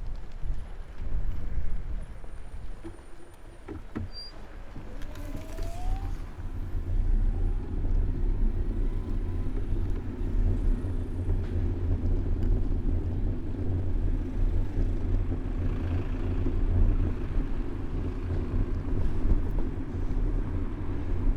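Road traffic heard close by from a bicycle: motor vehicles running past, with a brief rising engine note about five seconds in, then a steady low engine rumble.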